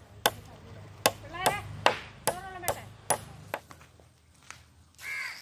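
Repeated knocks of a metal hand tool striking old wooden planks, about two a second, some with a short ringing tone; the blows thin out after about three and a half seconds.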